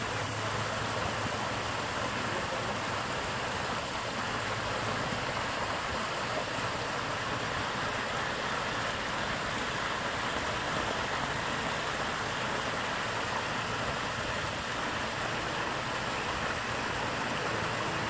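Water cascading over the stone tiers of a pondless waterfall: a steady, even splashing rush.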